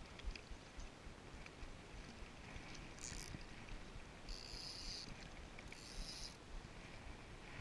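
Wind buffeting the microphone in low thumps while a small hooked fish is played on an ultralight spinning outfit, with three short high hissing bursts about three, four and a half and six seconds in.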